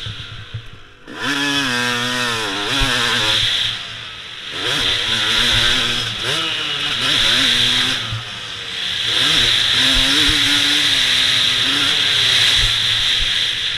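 Dirt bike engine revving hard and easing off as it is ridden around a motocross track. The pitch climbs through repeated bursts of acceleration, with the throttle closing briefly about a second in, again around four seconds and again near eight and a half.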